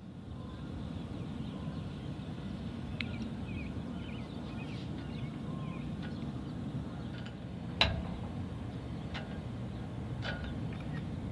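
Steady low rumble of background ambience with faint bird chirps and a few sharp clicks, the loudest click a little under eight seconds in.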